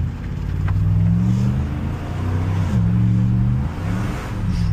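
Edelbrock-supercharged 5.7 L Hemi V8 of a 2012 Ram 1500 accelerating, heard from inside the cab: the revs climb, drop at an upshift a little under three seconds in, then climb again. The driver takes what he hears for a little belt slip on the blower drive.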